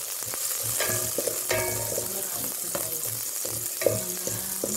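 Chopped garlic sizzling in hot oil in a metal pot while a wooden spatula stirs it, scraping against the pot's bottom and sides with short squeaky scrapes.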